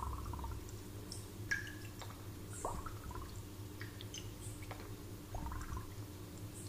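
Water plinking in a drinking glass: irregular single drips or bubbles, about two a second, each a short note that glides quickly upward in pitch, over a low steady hum.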